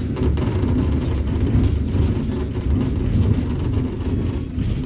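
City bus driving along, heard from inside: a steady low rumble of engine and road noise.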